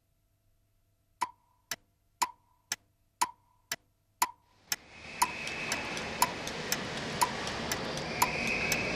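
A clock ticking, two ticks a second, every other tick carrying a short ringing tone. About halfway through, a steady station-platform background noise fades in under the ticking, which carries on over it.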